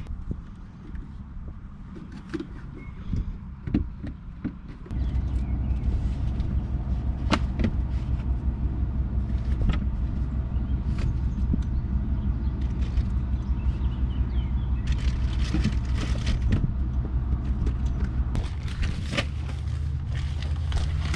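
A car's V6 engine, the 2005 Ford Escape's 3.0 litre, comes in suddenly about five seconds in and runs with a steady low hum at an even pitch. Scattered sharp clicks and knocks sound over it, and there are a few knocks before it starts.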